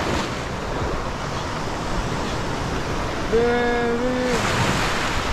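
Ocean surf washing onto the beach, with wind buffeting the microphone. A little over three seconds in, a brief drawn-out voice sounds for about a second.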